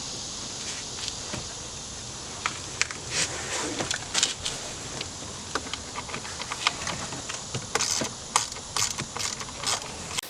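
Irregular clicks and light rattles of a socket ratchet and hand tools working on the bolts under a plastic steering-column shroud, over a steady hiss. The clicks come thicker in the second half.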